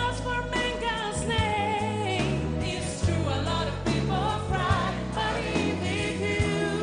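A pop ballad with voices singing over a backing band; the held sung notes waver, over steady bass notes.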